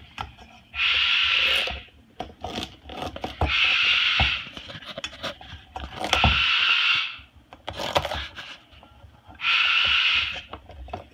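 Moluccan cockatoo's beak scraping and gouging the hard rind of a whole squash held in a steel bowl: four loud rasps of about a second each, a few seconds apart, with light beak clicks and taps between them.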